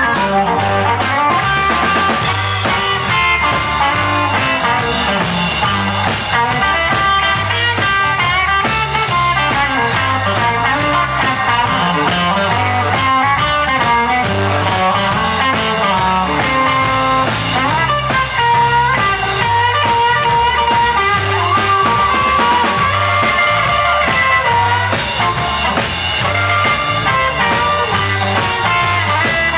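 Live electric blues band playing: electric guitar and harmonica lines over bass and a drum kit keeping a steady beat.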